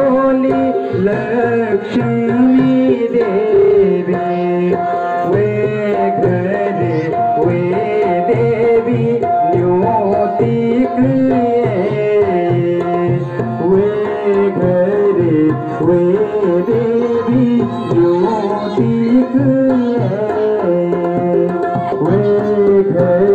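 Live Garhwali mangal geet (wedding song): harmonium and tabla playing, with a voice singing a gliding melody.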